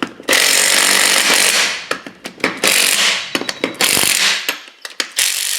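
Compressed air hissing from an air hose in several bursts while inflating a golf cart tire, the first and longest lasting over a second, then shorter bursts with small clicks between them.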